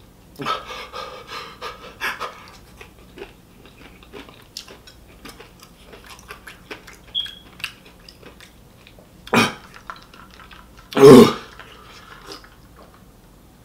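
A man panting and blowing out breath through pursed lips against the burn of extremely spicy hot chicken, with small wet chewing and mouth clicks. Two louder short bursts of breath break in near the end, the second the loudest.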